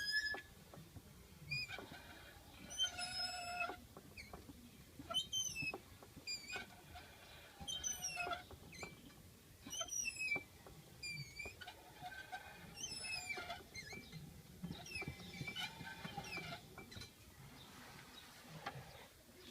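Squeaking from the propeller (cardan) driveshaft of a VAZ 21063 as the rear axle is turned by hand with the rear left wheel off: short high squeaks, falling in pitch, repeating about every one to two seconds, over a low scuffing from the rear left wheel hub.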